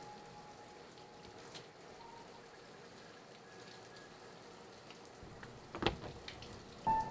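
Shower water spraying and pattering, a soft even hiss, under a faint held tone from the film score. About six seconds in there is a sharp knock, and a high held tone comes in just before the end.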